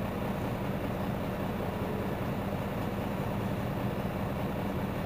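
Mercedes-Benz Citaro C2 city bus engine idling while the bus stands, a steady, even low hum.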